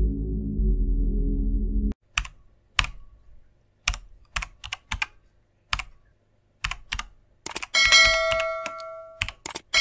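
Low background music cuts off about two seconds in. It is followed by a string of irregular sharp clicks like typing keys, the sound effects of an animated outro card. Near the end a notification bell dings once amid more clicks and rings out for about a second and a half.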